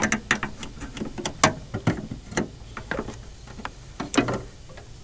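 A run of irregular light clicks and taps from hands handling the antenna cable and small plastic lever connectors.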